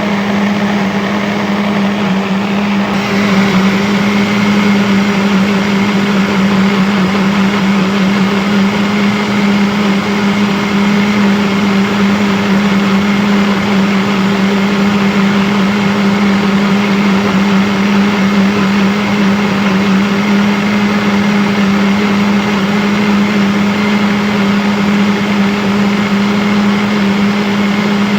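Electric blender motor running continuously at a steady speed: a constant low hum under an even whirring rush. About three seconds in, the whir turns slightly brighter and then holds steady.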